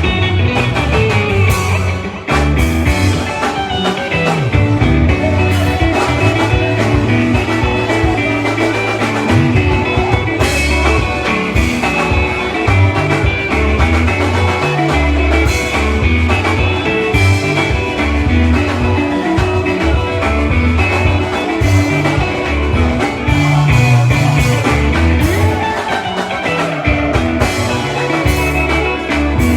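Live band playing an instrumental passage during a sound check, with guitar over a deep, moving bass line and a steady run of sharp percussive hits.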